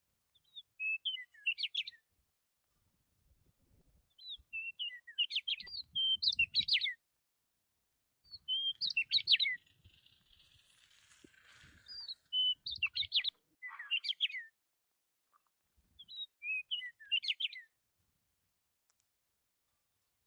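Budgerigar chirping in short bouts of quick, high chirps, about six bouts with brief pauses between them.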